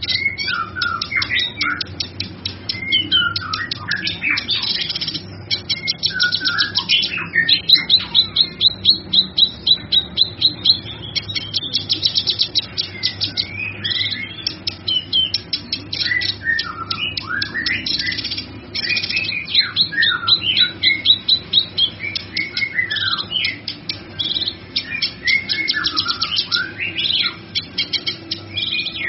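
Male kinoy songbird singing a long, varied song almost without pause: fast rattling trills mixed with short whistled notes that slide up and down.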